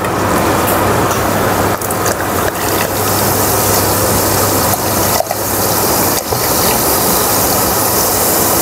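Sparkling makgeolli being poured into a large glass: a steady fizzing hiss, briefly interrupted a few times.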